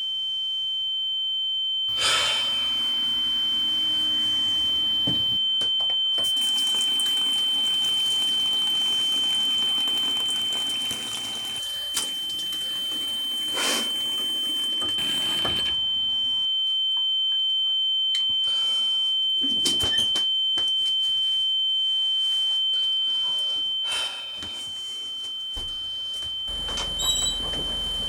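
A steady, high-pitched pure electronic tone, like a sine tone, held unbroken over shifting background noise with a few sharp clicks and knocks.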